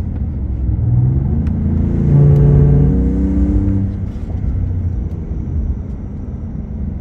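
Second-generation Ford Raptor's 3.5-litre twin-turbo V6 pulling under acceleration over a steady low rumble: a humming note climbs in pitch about a second in, is loudest around the middle, then eases off. This is the humming/grinding noise the owner hears while accelerating.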